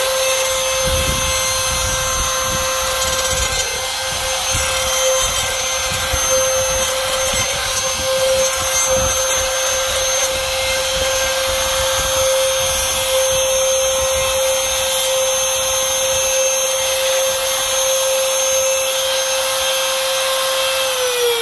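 Drill Master trim router running at a steady high whine while its V-bit cuts along the slot of an aluminium extrusion, with uneven scraping and rumbling as the metal is fed past the bit. Right at the end the motor is switched off and its whine starts to fall as it spins down.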